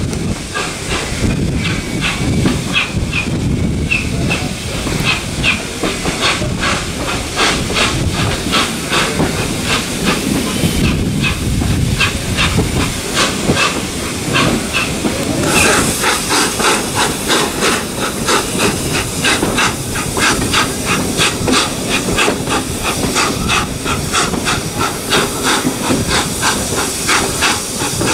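LNER A4 Pacific 4464 Bittern's three-cylinder steam exhaust beating steadily, heard from a carriage window, with the train's running rumble underneath. The beats grow louder and sharper about halfway through.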